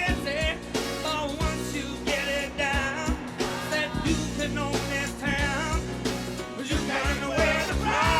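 Rock-and-roll style song with singing over a steady drum and bass beat.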